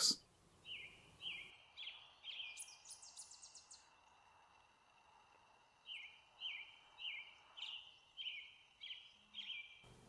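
Songbird singing: two runs of short, downward-sliding notes repeated about twice a second, with a quick high trill over the first run.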